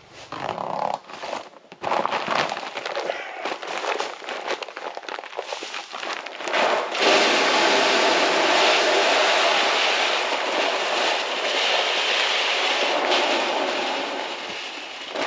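Deer corn poured from a sack into a deer feeder's hopper. It starts as scattered crackling rattles, and about seven seconds in it turns into a steady, loud rushing rattle of grain pouring.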